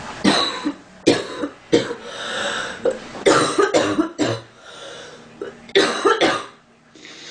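A young woman coughing repeatedly, in several quick fits of short, harsh coughs with breaths drawn between them; the last fit comes about six seconds in.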